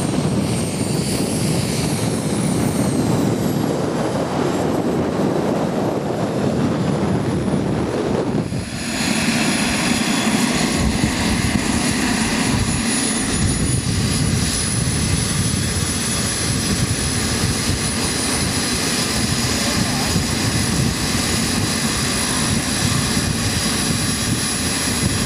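Twin model jet turbines of a Skymaster A-10 RC jet running at idle while it taxis: a rushing blast with a high whine that wavers slightly in pitch. After a short break about nine seconds in, the whine holds steady at one pitch.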